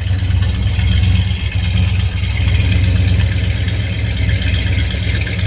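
1963 Plymouth Sport Fury's 383 Super Commando V8, fitted with Edelbrock Sniper fuel injection, idling steadily.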